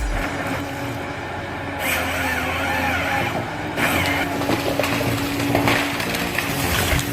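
Ponsse Ergo 8W forestry harvester at work: its engine runs steadily while the harvester head cracks and crushes wood as it handles a tree.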